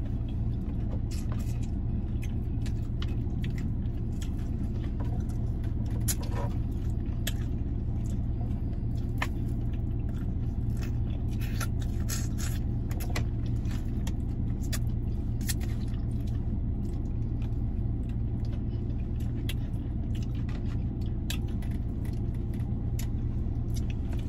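Steady low hum of the car running while parked, heard inside the cabin, with many small wet clicks and smacks of eating a chicken wing and licking fingers close to the microphone.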